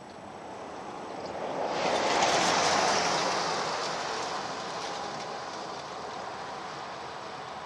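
Full-size SUV driving past close by on asphalt: engine and tyre noise swelling to a peak about two seconds in, then fading slowly as it drives away.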